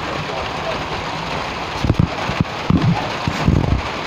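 Heavy rain pouring down in a steady hiss, with several short low thumps in the second half.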